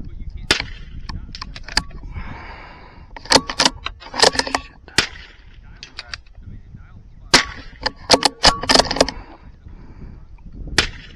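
.22 LR gunshots, a series of sharp cracks fired at irregular intervals, some singly and some in quick bunches of two or three.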